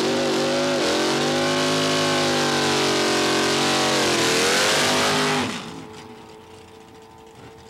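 Super Stock Chevy II drag car's V8 at full throttle down the strip, its pitch climbing with a dip at each gear change, about a second in and again about four seconds in. The sound drops away sharply about five and a half seconds in.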